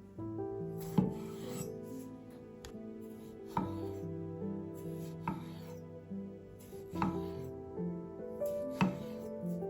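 Knife cutting on a cutting board: sharp strokes every second or two, each with a short scraping smear, over soft background music with held notes.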